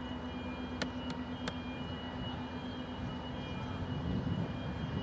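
Steady engine drone of an inter-island car ferry under way, a low hum with a few thin, steady higher tones over it. Three sharp clicks come in the first second and a half, and a deeper rumble builds near the end.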